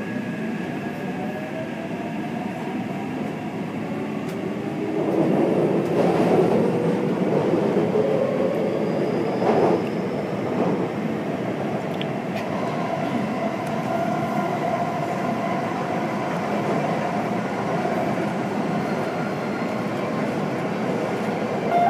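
Taipei Metro Red Line train heard from inside the carriage as it pulls away from a station: the traction motor whine rises in pitch over the first few seconds as it accelerates. The running noise of wheels on rail grows louder about five seconds in and then holds steady as the train cruises.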